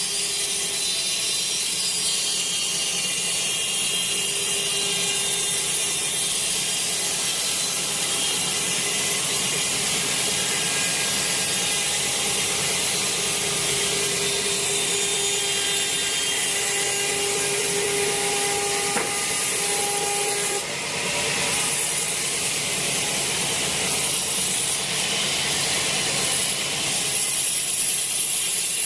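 Sawmill saw running steadily as it rips a teak log lengthwise into a long beam. A faint steady hum runs beneath the cutting noise and stops with a brief dip about twenty seconds in.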